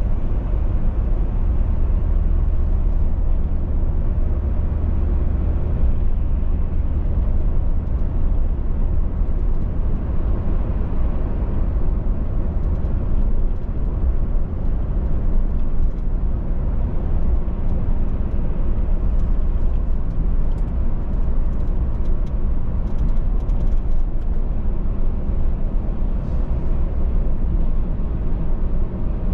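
A car driving along a road: a steady rumble of tyre and road noise with engine hum, deepest and strongest in the low range.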